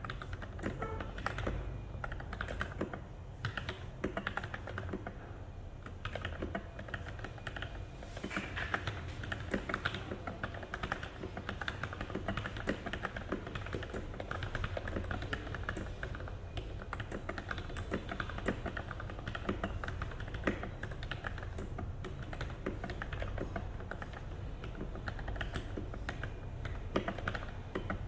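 Continuous fast typing on an NJ68 mechanical keyboard fitted with lubed Gateron Milky Yellow linear switches: a dense, unbroken stream of keystroke clacks.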